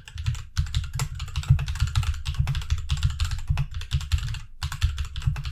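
Fast typing on a 60% mechanical keyboard with red switches: a rapid, uneven run of key clacks, with a brief pause about four and a half seconds in.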